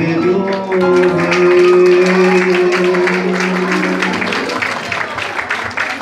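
The final held chord of a live Persian pop song, fading out about four seconds in, while the audience breaks into applause about a second in.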